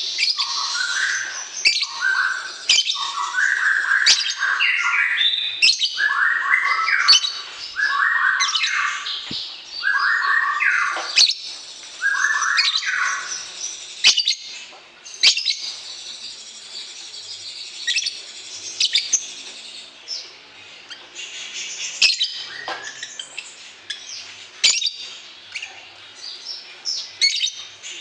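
Songbirds chirping and chattering continuously, with loud repeated stepped song phrases through the first half and sharp high chirps throughout. This is the kind of bird sound played to young cage birds to train them to respond.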